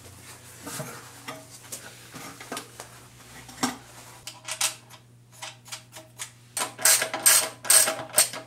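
Metal parts and hand tools clinking and clattering as a Toyota Prius hybrid battery pack is handled, with a run of louder, ringing clinks near the end. A steady low hum runs underneath.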